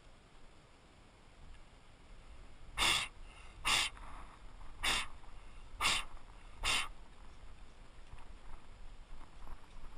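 A man's breath: five short, forceful puffs about a second apart.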